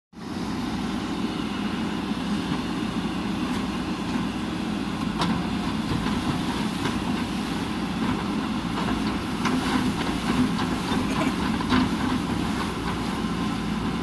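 JCB backhoe loader's diesel engine running steadily while the backhoe arm works, with a few short knocks and clanks scattered through.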